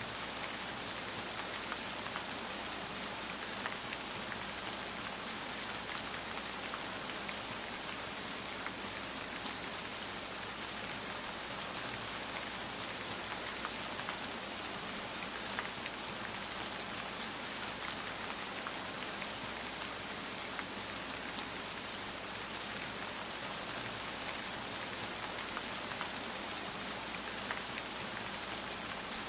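Steady rainfall: an even hiss of rain with many small drops ticking on a surface.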